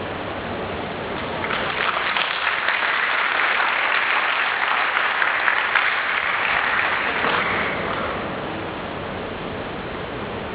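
Audience applauding. The clapping swells in about a second and a half in and dies away about eight seconds in, over a steady background hiss.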